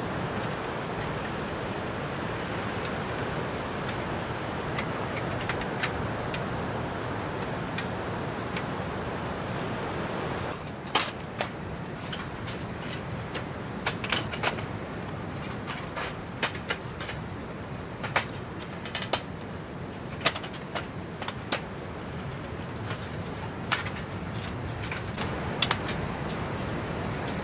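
Thin stainless-steel plates of a folding Ruetbiden Fire Crown fire pit clinking and clicking against each other as they are slotted together, the sharp clicks coming irregularly from about a third of the way in, over a steady rush of surf and wind.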